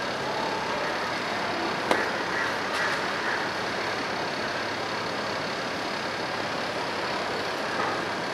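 Steady background noise of an open-air courtyard, an even hiss and hum, with one sharp click about two seconds in.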